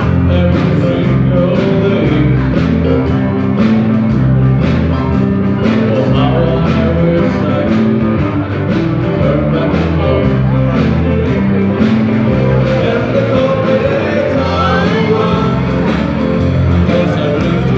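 Band playing rock music, with a steady drum beat and singing.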